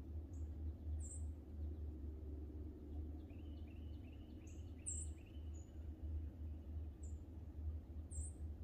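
Small birds calling in woodland: short, high-pitched chirps about once a second, with a quick run of about five lower notes in the middle, over a steady low rumble.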